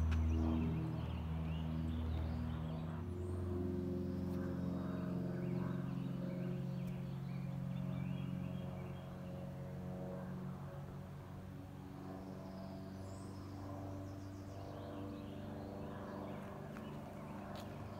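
Piper PA-23 Aztec's twin piston engines and propellers droning overhead out of sight, fading over the first ten seconds as the plane moves away. Faint bird chirps are heard above it.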